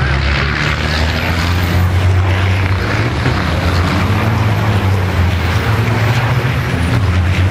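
Several turbo-diesel racing trucks running hard in a line through a tight bend, their engines blending into one loud, low, steady drone.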